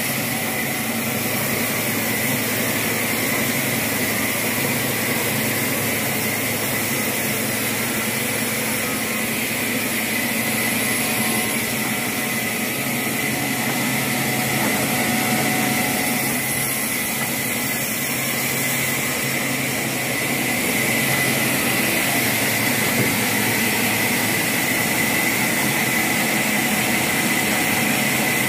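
Steady machine running noise with a constant high-pitched whine, unchanging throughout.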